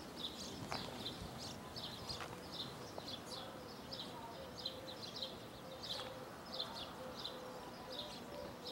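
Small birds chirping in the background: many quick, high chirps repeating throughout, with a faint, low wavering note underneath from about four seconds in.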